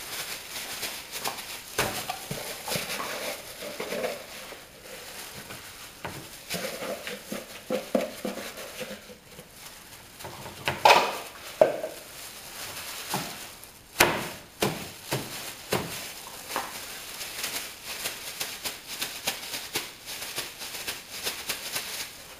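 Plastic bag crinkling and rustling as a gloved hand presses and handles a lump of damp dough-like composition inside it, with scattered light knocks and two sharper thumps about 11 and 14 seconds in.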